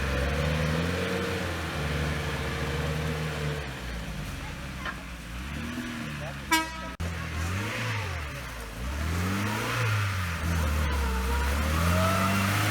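An off-road 4x4's engine revs up and eases off again and again as it works through deep mud. A short car-horn toot sounds about halfway through.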